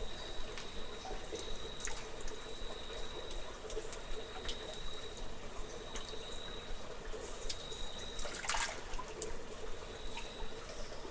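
Cave water dripping and trickling: a continuous running-water bed dotted with sharp drip clicks. A thin, steady high tone sits in the background and breaks off about eight seconds in, and a brief louder splash-like rush comes about eight and a half seconds in.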